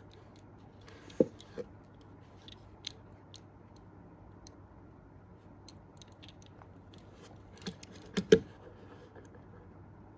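Scattered light clicks and knocks of a diecast model car and its plastic and cardboard packaging being handled, with a cluster of sharper knocks about eight seconds in, the loudest.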